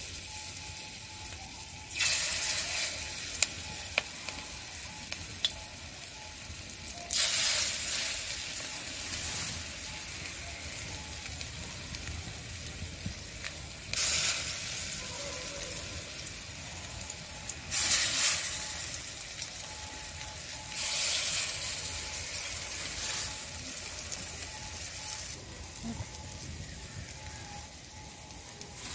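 Pumpkin-flower pakoras (batter fritters) being dropped into hot oil in a kadai: each one lands with a sudden loud burst of sizzling that fades over a second or two, several times a few seconds apart, over a steady quieter sizzle of the frying.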